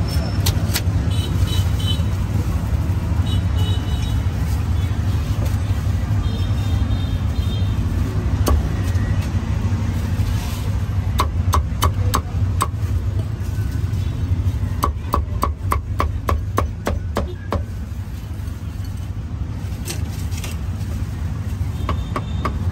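A cleaver chopping roasted meat on a block in two quick runs of sharp strokes, about four a second, starting about halfway through, over a steady low rumble of street traffic.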